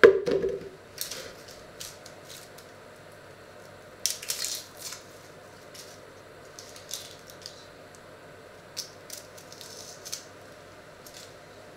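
A peeled onion dropped into a plastic measuring jug with a sharp knock at the start, followed by scattered crackles and scrapes of a small knife peeling dry, papery onion skin.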